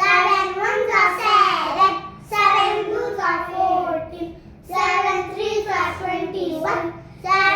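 Children's voices chanting multiplication tables in a sing-song recitation, in phrases of a second or two with short breaks between them.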